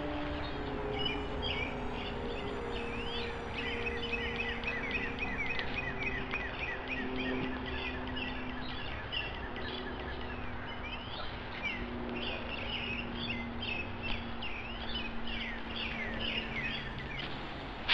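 Wild birds singing and chirping in woodland, many short calls overlapping throughout, over a steady bed of outdoor background noise.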